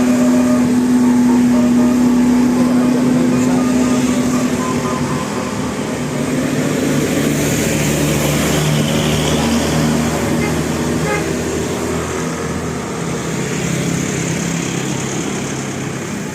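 Large buses passing on the road, engines running with a steady hum over road noise; the hum drops to a lower pitch about five seconds in.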